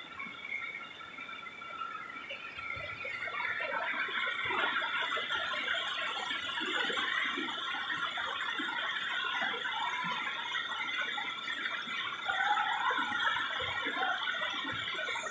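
Waterfall and creek water rushing over rocks, under a steady high-pitched shrill of several held tones. The sound grows louder a few seconds in.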